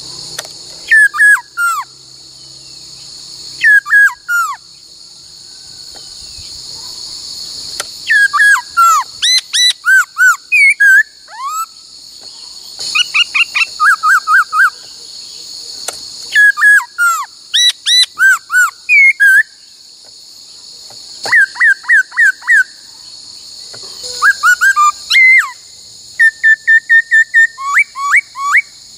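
Laughingthrush (khướu) singing loud whistled phrases in bursts every couple of seconds. The phrases mix slurred up-and-down whistles with fast runs of repeated notes, over a steady high hiss.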